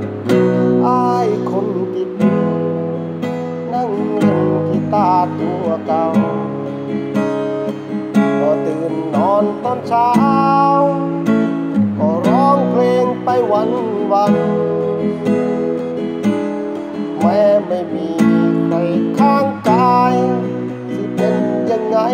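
Steel-string acoustic guitar strummed in a steady rhythm, with a man's voice singing a melody over it.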